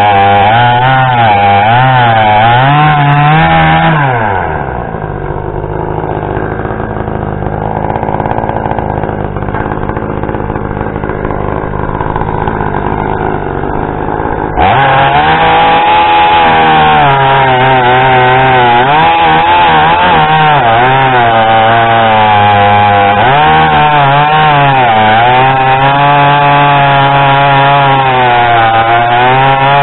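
Two-stroke chainsaw bucking a log into firewood rounds, running at full throttle with its pitch sagging and recovering under the load of the cut. About four seconds in it drops to a low idle. It revs back up abruptly about halfway through and cuts again.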